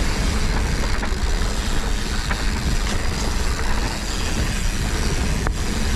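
Mountain bike riding down a dirt forest singletrack: steady rush of wind on the microphone mixed with the rumble of the tyres over the ground, with one sharp click near the end.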